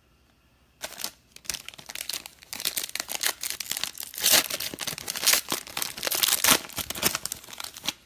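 Plastic wrapping on a sealed trading-card box being torn open and crinkled by hand, a dense run of crackling that starts about a second in.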